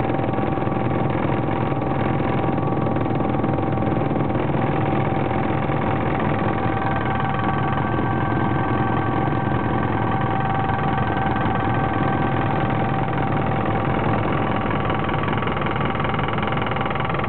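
Cabin noise of a Sikorsky S-76 helicopter climbing after take-off: its twin turboshaft engines and rotor run steadily, with a few high whining tones held at a constant pitch.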